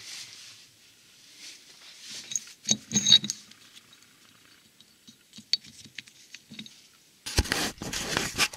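Light metallic clinks and taps of a cast-iron engine main bearing cap and its bolts being handled and set down on the bench, the sharpest clicks about three seconds in. Near the end, loud rustling and bumping as the camera is picked up and moved.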